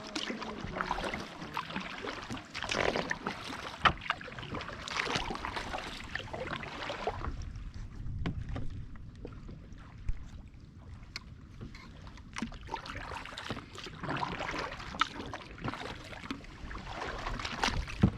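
Canoe paddles pulling through the water in quick strokes, splashing again and again. In the middle the splashes thin out under a low rumble, and there is a sharp knock about four seconds in.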